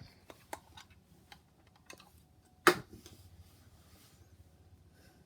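A few scattered light clicks and taps, with one sharp, much louder click a little past halfway.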